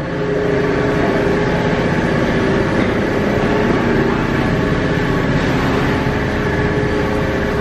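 A vehicle engine running steadily with a constant hum.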